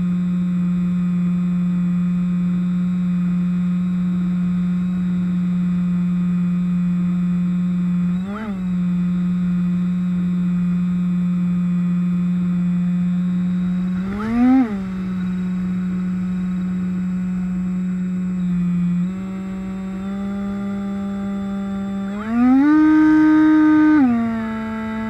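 Electric motor and propeller of a Bixler model plane in flight, a Turnigy 2826 brushless outrunner spinning a 6x5 prop: a steady whine whose pitch changes with throttle. It rises briefly twice and steps up slightly, then goes higher for about two seconds near the end before dropping back.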